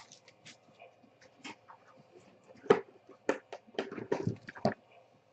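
Trading cards and card packs being handled: scattered short clicks and rustles, busier in the second half.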